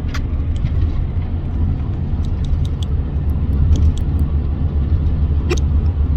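Steady low rumble of a car heard from inside the cabin, with a few short faint clicks, one stronger about five and a half seconds in.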